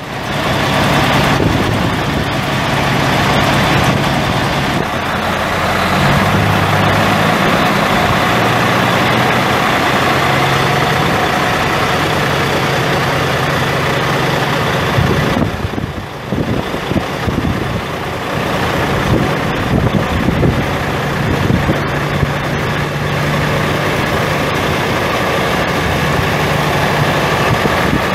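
Caterpillar 3176 inline-six turbo diesel of a 1995 Kenworth T450 semi truck running, its low engine note shifting slightly in pitch now and then, with a brief dip in level about halfway through.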